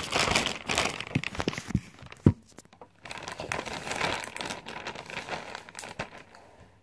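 Clear zip-top plastic bag crinkling as it is handled and moved about, with one sharp click a little over two seconds in; the crinkling grows softer in the second half.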